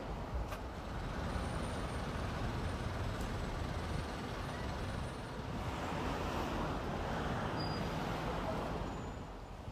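Road traffic noise from passing cars and buses, swelling as a vehicle goes by about six seconds in.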